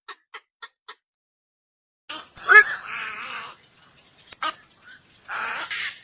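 Black-crowned night heron calling: a run of short clipped notes, about three a second, in the first second. After a pause come harsh croaking calls over a background hiss, the loudest about two and a half seconds in and a longer one near the end.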